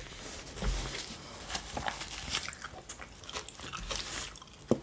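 Close-miked chewing of a mouthful of borscht: scattered soft, wet mouth clicks and smacks, with one sharper click near the end.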